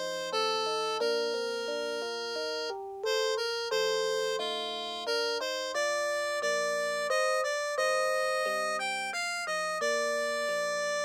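Electronic chime melody of the kind played by a Japanese municipal disaster-prevention radio (bōsai musen) loudspeaker system, here reproduced. A tune in several voices, each note struck and fading like a chime or electric piano, with a short pause about three seconds in.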